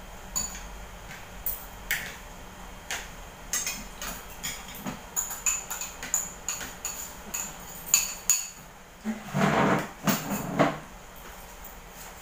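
Spoons and forks clinking and scraping on ceramic plates during a meal, many sharp clinks with a short ring. About nine seconds in, a plastic chair scrapes on the floor as it is pushed back.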